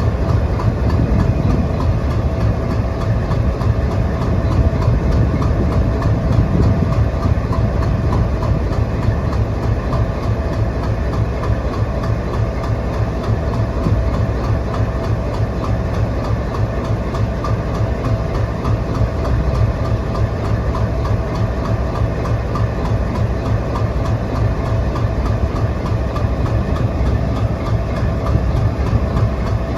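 A train running past on the adjacent track, its wheels clattering over the rails in a steady, continuous stream of noise.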